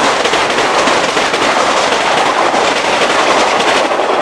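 Metro-North M7A electric multiple-unit train passing at speed, its wheels clattering rapidly over the rail joints. The noise thins out near the end as the last car goes by.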